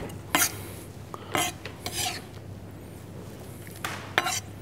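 Kitchen knife scraping diced tomato across a wooden cutting board: four short rasping scrapes, spread unevenly over a few seconds.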